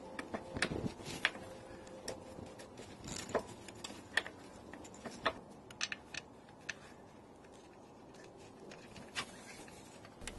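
Scattered light metallic clicks and taps, irregular and quiet, as mounting screws are handled and started by hand into a mower's steel idler pulley bracket.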